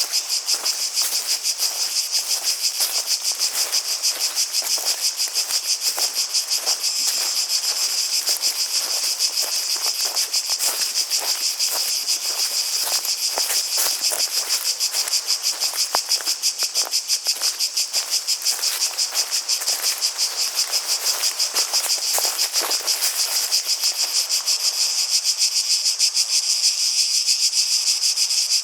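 Cicadas calling in chorus: a steady high buzz made of fast, dense pulses.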